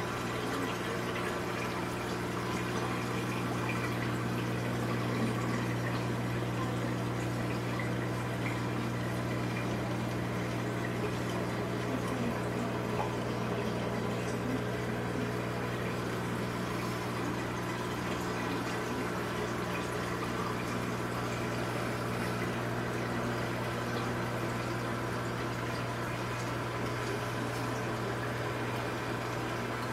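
Saltwater reef aquarium's water circulation running: a steady low pump hum under a constant rush and trickle of moving water.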